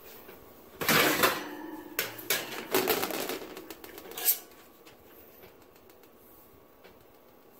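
Metal oven rack and aluminium sheet pan clattering and scraping against each other as the pan goes onto the pulled-out rack, several times over a couple of seconds, ending in a sharp clank about four seconds in.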